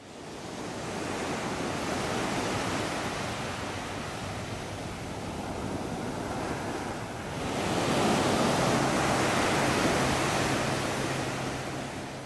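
Ocean surf, waves breaking and washing in. It fades in at the start, swells louder with a bigger wave a little past the middle, and fades out at the end.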